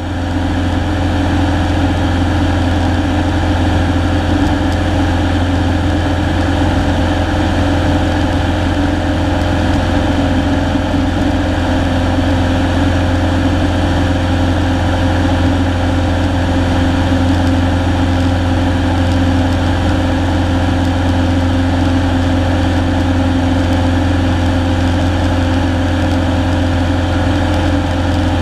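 Single-engine Cessna's engine and propeller droning steadily in flight, heard from inside the cockpit at an even, unchanging pitch.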